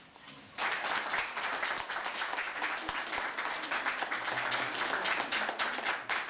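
Audience applauding, breaking out about half a second in and holding steady, many hands clapping at once.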